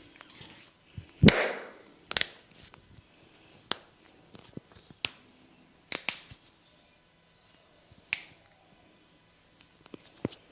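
Hands at work in a head massage: a string of sharp single hits, slaps or snaps, about one to two seconds apart, the loudest and fullest about a second in.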